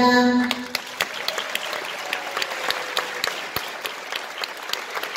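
Audience applauding at the end of a children's song-and-dance number, with single sharp claps standing out. The music's last held note dies away in the first half second.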